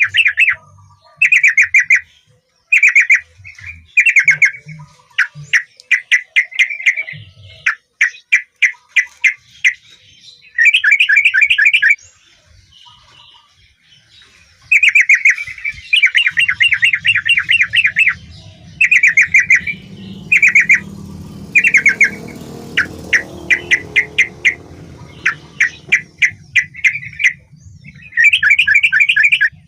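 Yellow-vented bulbul (trucukan) singing: short phrases of rapid chattering notes, repeated again and again with brief pauses. A low rumble runs underneath from about halfway through.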